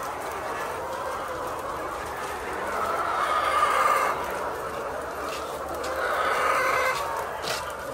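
A flock of layer chickens clucking and calling together, with two louder, drawn-out calls rising out of the flock about three and six seconds in.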